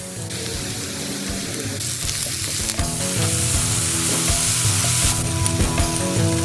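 Chopped onion, garlic and vegetables sizzling in butter in a frying pan as a spatula stirs them. The sizzle is louder from about two seconds in until about five seconds in. Background music plays underneath.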